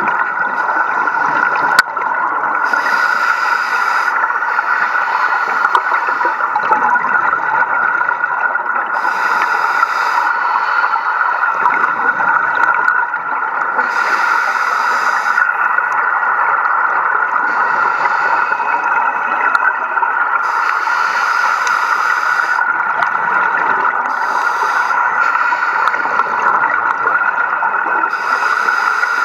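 Scuba regulator exhalations underwater: bursts of bubbles about every five seconds, following a diver's breathing, over a steady hum.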